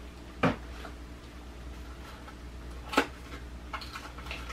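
Small cardboard box being handled: two sharp clicks of the card, about half a second in and about three seconds in, then a few faint ticks near the end, over a low steady hum.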